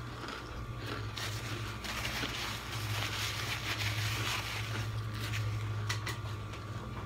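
Close-miked chewing of a last bite of tuna sandwich, with the rustle of a paper napkin and paper plate being handled, strongest in the middle. A steady low hum runs underneath.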